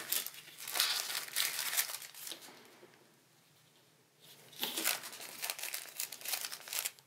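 Clear plastic packaging bag crinkling as a stack of die-cut cardstock labels is slid into it and the pack is handled. The crinkling comes in two spells with a quiet pause of about a second between them.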